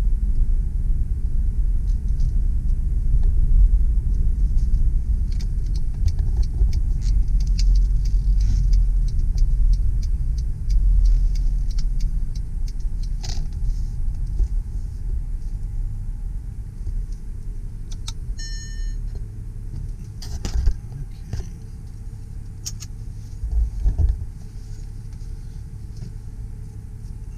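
Cabin noise of a 2007 Mercedes ML320 CDI turbo diesel being driven: a steady low engine and road rumble that grows quieter over the second half, with scattered light ticks and rattles. A brief chime sounds about two thirds of the way through.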